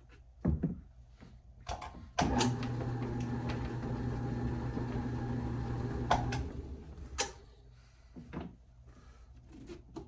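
Electric bowling-ball spinner switched on with a click, its motor running with a steady hum for about four seconds before it is switched off. Several knocks and clicks come before and after it.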